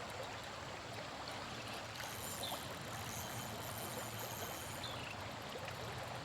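Creek water running steadily, an even rushing noise, with a few faint short high chirps on top.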